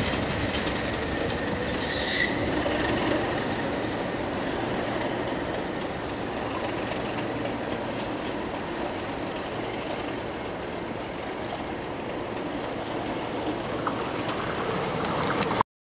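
Pair of Class 37 diesel locomotives, English Electric V12 engines, pulling a train away into the distance. The engine and wheel noise slowly fades, with a short, high wheel squeal about two seconds in. The sound cuts off suddenly near the end.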